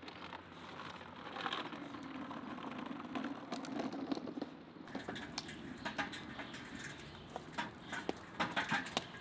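A child's plastic kick scooter rolling on concrete, its wheels making a low steady hum. About five seconds in, water splashes in a stone fountain basin as hands work in it, with many small clicks.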